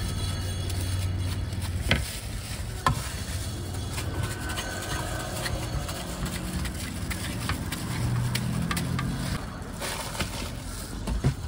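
Knife clicking and scraping as fruit is peeled and sliced into a metal scoop, with a few sharp taps about two and three seconds in and again near the end, over a steady rumble of street traffic.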